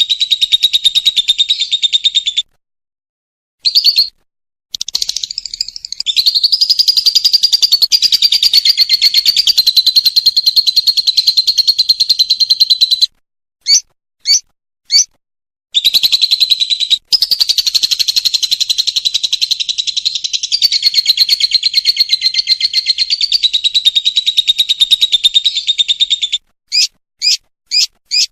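Lovebird ngekek: long runs of very rapid, high-pitched trilling chatter lasting several seconds at a time. The runs break off briefly, with a few separate short chirps about halfway through and again near the end.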